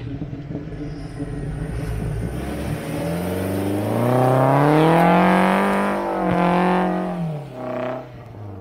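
Off-road 4x4's engine running low, then revving hard. The pitch climbs over about two seconds, holds, and drops away about seven seconds in, followed by a short blip of the throttle.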